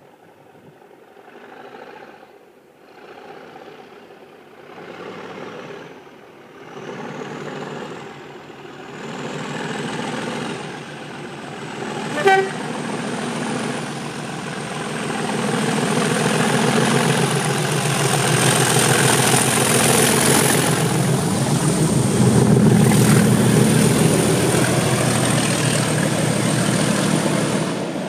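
Class 37 diesel locomotive's English Electric V12 engine working hard on approach, growing steadily louder until it passes close by near the end, with a high whistle from the turbocharger above the engine note. One short horn blast sounds about twelve seconds in.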